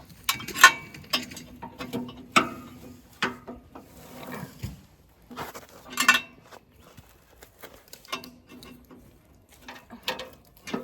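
Irregular metallic clicks, knocks and clanks of hand tools working on a wood chipper's housing, with a few louder strikes that ring briefly.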